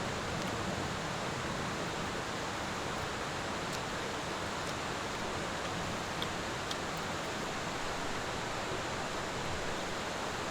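Steady rushing of a mountain valley stream, with a few faint ticks.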